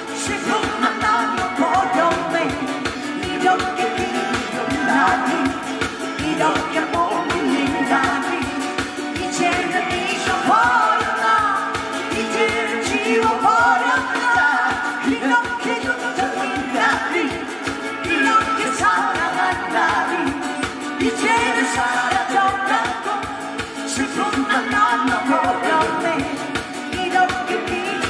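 Live singing over backing music with a steady beat.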